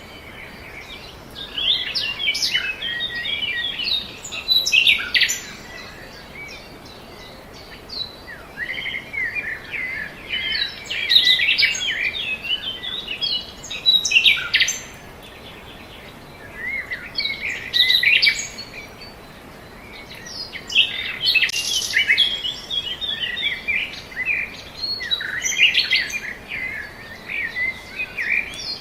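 Birdsong: quick chirps and trills in phrases of a few seconds, with short lulls between, over a faint steady hiss.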